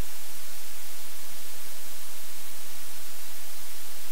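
Loud, steady white noise: an even hiss with no pitch or rhythm, unbroken throughout.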